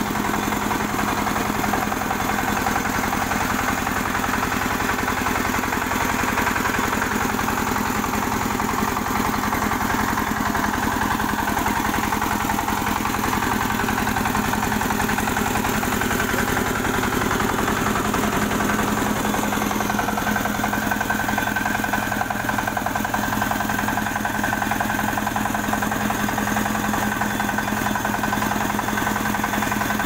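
Mini combine harvester's engine running steadily at constant speed, a continuous even hum. A higher whine joins in about two-thirds of the way through.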